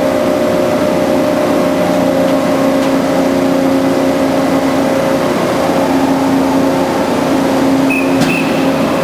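Band saw running steadily, a constant machine hum with a couple of steady tones.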